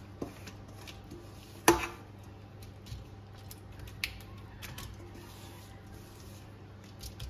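Handling sounds as raw marinated chicken leg quarters are set down and arranged on a foil-lined metal baking tray: a few light taps and knocks, the sharpest about a second and a half in.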